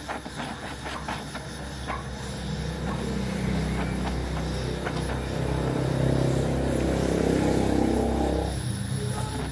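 Gas welding torch flame playing on an aluminium crankcase as filler rod is melted into a large hole, with scattered crackling pops in the first couple of seconds. Under it, a low rumbling hum grows louder and then falls away sharply near the end.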